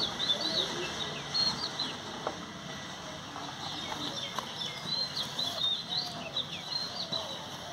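Several small birds chirping busily, short high notes coming in quick succession, with a few lower falling calls among them.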